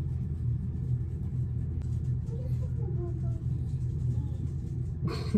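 Steady low rumbling hum with faint voices under it, and a brief burst of noise near the end.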